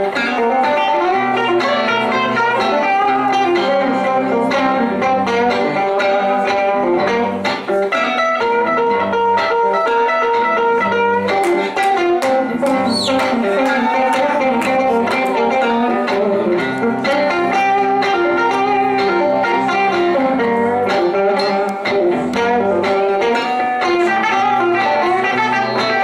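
Two electric guitars playing an instrumental passage live, with single-note lead lines ringing over chords.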